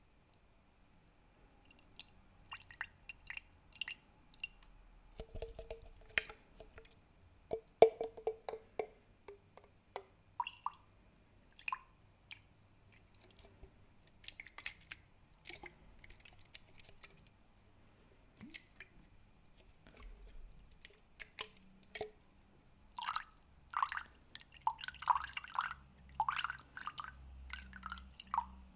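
Close-miked ASMR water sounds: scattered drips and small splashes of water in a bowl, growing denser near the end.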